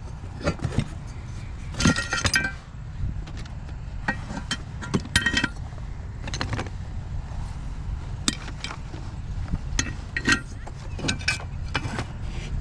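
Scattered metallic clinks and jangles, a dozen or so sharp ones with a brief ringing, over a steady low rumble.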